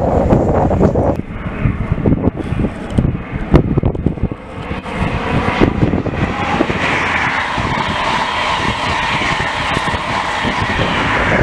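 High Speed Train led by a Class 43 diesel power car passing close at speed: an uneven rumble and clatter in the first seconds, then from about halfway a steady loud rush of engine and wheel noise as the power car and coaches go by.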